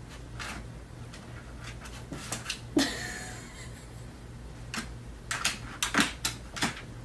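A plastic laundry basket knocking and rattling as a small dog climbs into it: one loud knock about three seconds in, then a run of quick knocks near the end.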